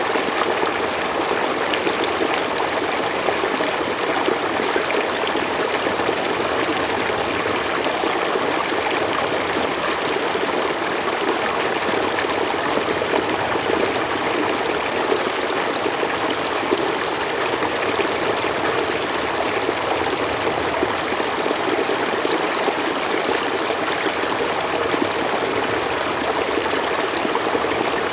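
Stream water flowing steadily over rocks, a continuous rushing and trickling.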